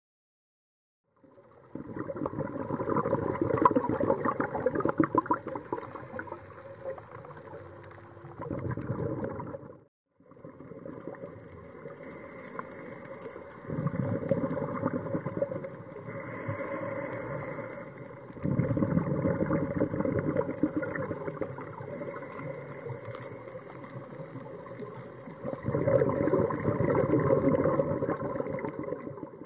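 Underwater water noise picked up by the camera: a steady rushing of water that swells louder in stretches and drops out briefly about ten seconds in.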